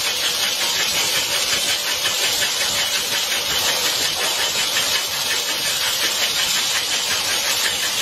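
Bottle-handling machine on a production line running: a steady mechanical whir and hiss with a fast, fine rattle.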